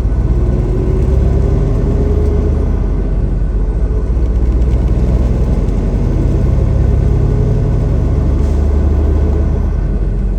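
Semi truck's diesel engine running steadily with road noise, heard from inside the cab while driving on the highway: a loud, even low rumble with a faint tone that slowly rises and falls.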